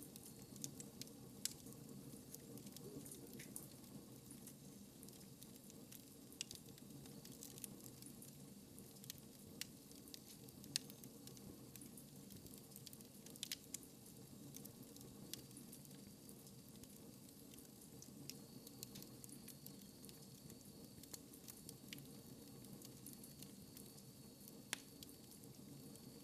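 Fire crackling in a fireplace: faint, irregular sharp pops and snaps over a low, steady rush of flame, with a few louder pops scattered through.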